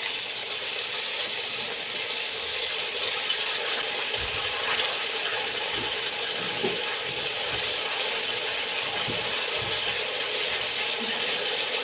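Meat and bones sizzling in hot oil with onions and whole spices in a pressure cooker pot: a steady sizzle, with a few faint soft knocks.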